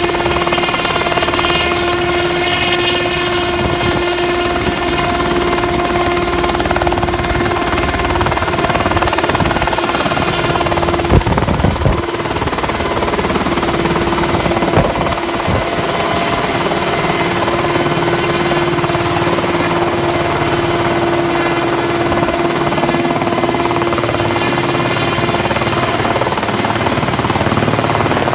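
Ultrasport 496 light helicopter's engine and rotor running at flight power through a hover and climb-out, a steady drone with a high held whine over it. A few brief loud thumps come a little before the middle.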